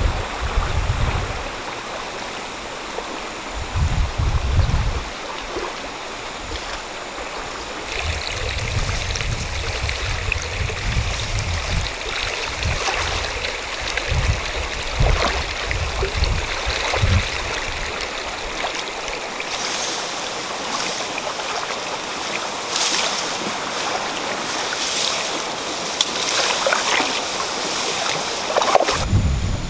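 A river's flowing water hissing and rushing, with gusts of wind buffeting the microphone now and then. In the latter part, short crackling rustles of tall grass being pushed aside.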